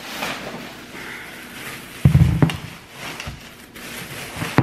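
Groceries being handled and unpacked: a rustle for the first two seconds, then a loud thud about two seconds in as an item is set down, followed by a few lighter knocks and clicks.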